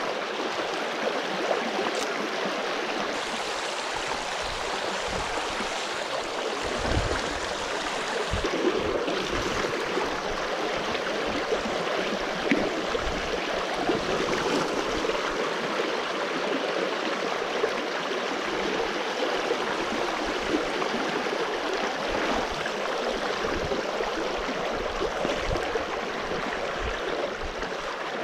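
Shallow stream running fast over stones: the steady rush and gurgle of a riffle close to the microphone, with a few dull low bumps partway through.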